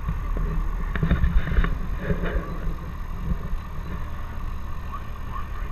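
Light aircraft's piston engine running steadily at taxi power, heard from inside the cabin, with a few short knocks about a second in.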